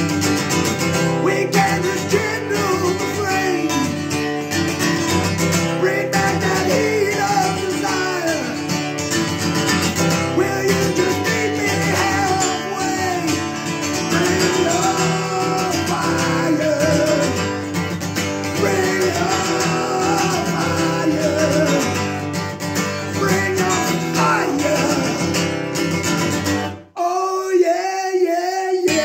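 Acoustic guitar strummed in a steady rhythm with a man singing over it. Near the end the guitar stops for about two seconds under the voice, then comes back in.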